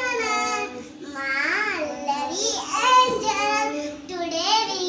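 A child singing, with a steady low hum underneath.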